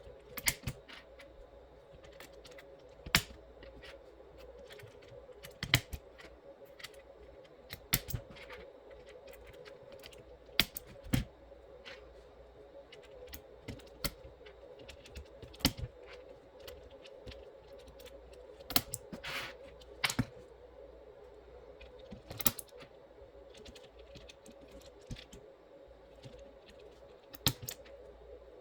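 Sharp, scattered clicks from an aigo A108 mechanical keyboard fitted with Outemu Peach switches, coming irregularly about once every second or so, over a steady faint hum.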